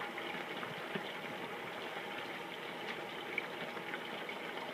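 Hot oil in a deep-fry pot sizzling and crackling steadily as it bubbles, with a couple of light clicks from metal tongs against a metal baking pan.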